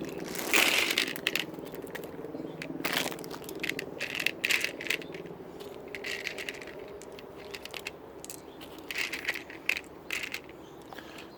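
Rustling and scattered light clicks of hard-shelled gummy worm candies and their packet being handled and shifted about, the loudest rustle about half a second in.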